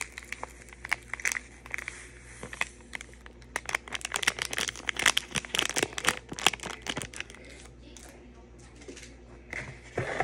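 Packaging crinkling and rustling in hand while a small Zen sand garden kit is unpacked: a dense run of crackles, thickest in the middle few seconds.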